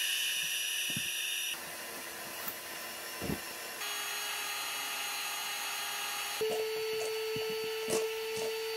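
A small electric motor running steadily, its pitch shifting in steps a few times, with a few light knocks over it.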